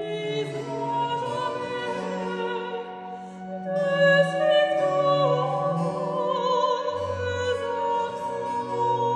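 Soprano singing a Baroque aria with vibrato, accompanied by a wooden baroque flute, harpsichord and cello, with the voice and flute growing louder about four seconds in.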